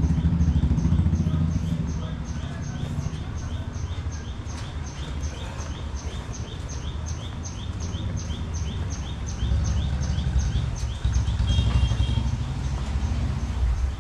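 Market-street ambience: a steady low rumble of traffic, with a short high chirp repeating evenly about three times a second throughout.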